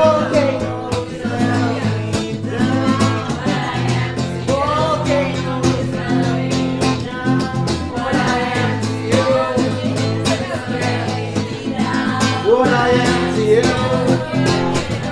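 Live acoustic guitar strummed steadily, with voices singing a melody over it.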